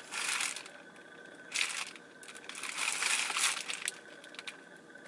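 Crinkling of a clear plastic retail package of zipper-seal bags being handled and turned over, in irregular bursts: a short one at the start, another about a second and a half in, and a longer stretch from about two and a half to four seconds in.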